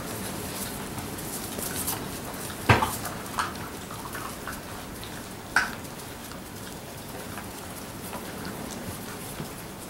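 A litter of Labrador Retriever puppies playing on a concrete floor: a steady patter of paws and claws clicking and scuffling, broken by two short sharp sounds, the louder one just under three seconds in and another about halfway through.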